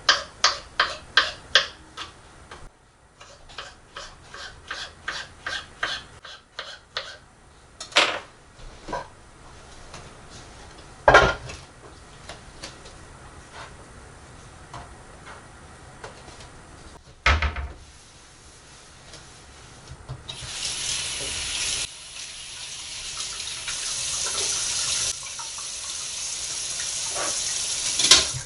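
Kitchen utensils clicking and tapping in quick runs, with a few sharp knocks, two of them heavier thumps, as things are set down. About two-thirds of the way in, the kitchen tap is turned on and runs steadily into the sink, growing a little louder.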